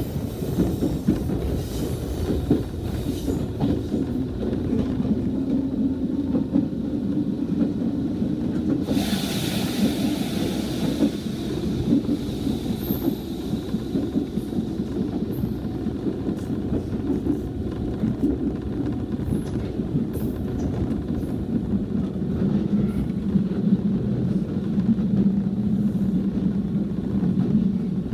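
A Nishitetsu Kaizuka Line train running, heard from inside the car: a steady low rumble of wheels on rail and running gear. A hiss lasting about two seconds comes a third of the way in.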